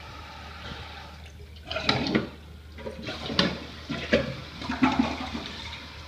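Toto Drake toilet flushing with its tank open: a run of about five loud, uneven gurgling and splashing surges between about two and five seconds in, over a faint steady hum.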